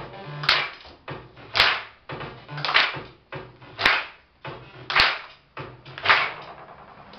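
Music with a slow, steady beat: a sharp snare or clap crack about once a second over low bass notes.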